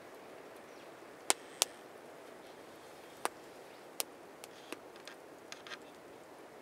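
Small wood campfire crackling: a few sharp, scattered pops over a steady low hiss, the loudest two close together a little over a second in, then fainter ticks later on.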